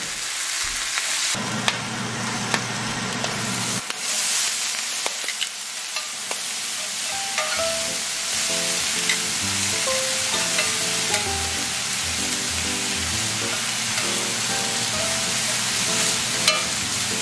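Food frying in a hot pan, a steady sizzle with a few light clicks. Background music comes in about seven seconds in.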